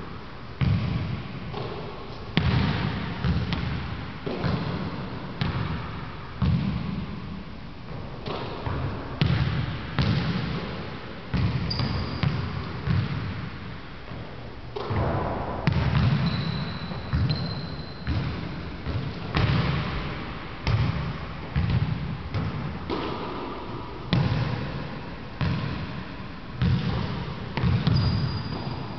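Basketball bouncing on a hardwood gym floor, a thud roughly every second, each ringing on in the echo of the large hall.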